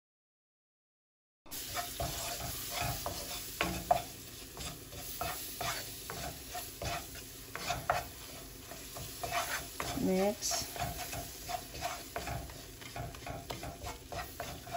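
Silent for about a second and a half, then butter and flour sizzling in a non-stick frying pan while a wooden spoon stirs and scrapes through them in quick, repeated strokes: the butter melting into the flour as the base of a gravy.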